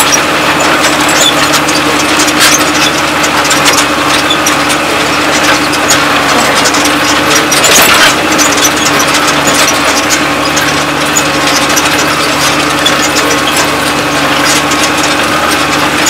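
New Holland TM130 tractor engine running steadily under load while pulling a Kverneland plough through the ground, with scattered light clicks and rattles.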